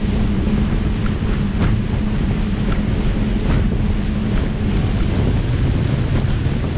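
A 40 hp outboard motor runs at speed on a small inflatable boat, with wind buffeting the microphone and the hull slapping through choppy water a few times. The engine note drops lower about two-thirds of the way through.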